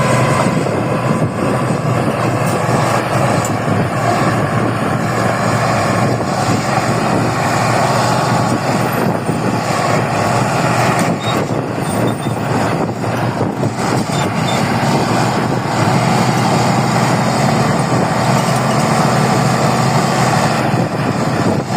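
Bulldozer's diesel engine running steadily at working load while it levels ground.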